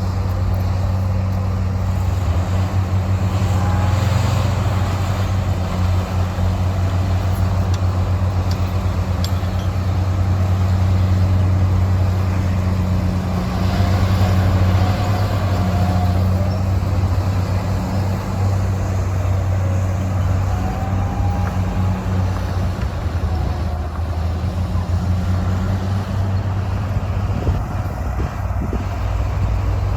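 Heavy diesel engines of dump trucks and a bulldozer running steadily, a deep continuous drone. Faint higher whines rise and fall now and then.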